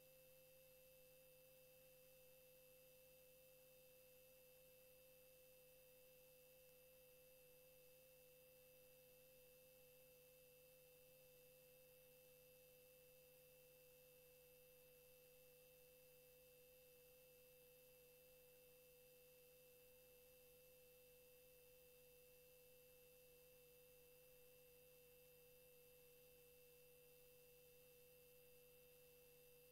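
Near silence: only a faint steady electrical hum, an unchanging tone in the sound system, with no voices.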